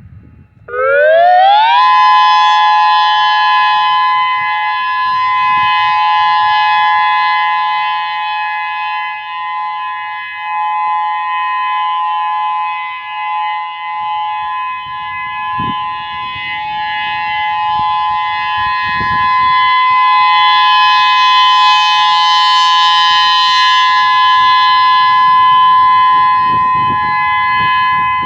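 Whelen WPS-3016 electronic outdoor warning siren sounding its test alert. Its tone sweeps up in pitch about a second in, then holds a steady, loud note.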